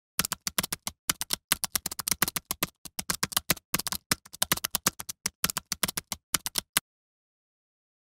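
Typewriter sound effect: fast, irregular key clacks of typing, which stop abruptly about seven seconds in.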